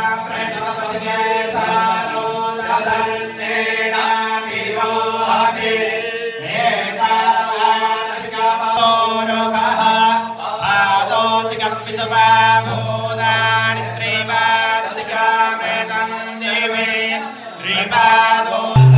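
Voices chanting Hindu mantras in unison over a steady held drone, for a Navagraha puja. A loud low hum comes in right at the very end.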